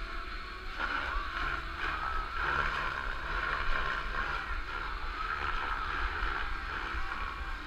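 Distant radio-controlled model airplane's motor and propeller buzzing steadily, swelling and fading as it flies, over a low wind rumble on the microphone.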